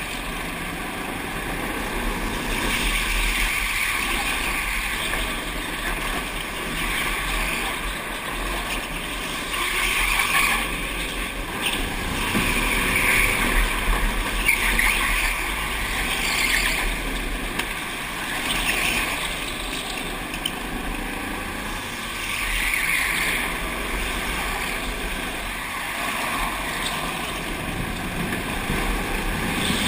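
Go-kart being driven at speed round an indoor track: a steady running noise that swells and eases every few seconds.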